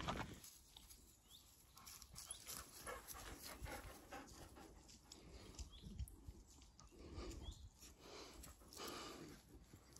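Faint panting of dogs, with small irregular sounds of them moving about; otherwise near silence.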